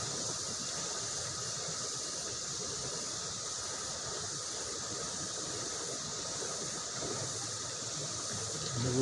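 Steady rush of a fast-flowing river, with a thin, steady high buzz of insects over it.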